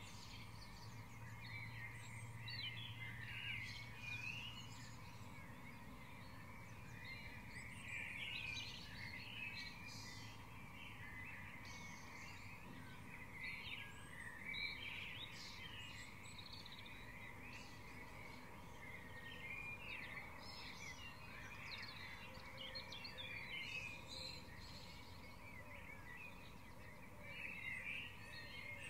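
Dawn chorus: many birds singing and calling at once, a dense, unbroken mix of short chirps and trills.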